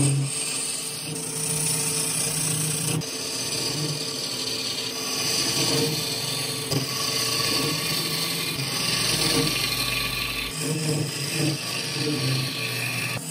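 Wood lathe spinning a wooden blank while a hand-held gouge hollows its end grain: a continuous shearing, hissing cut that changes in strength every few seconds as the tool moves.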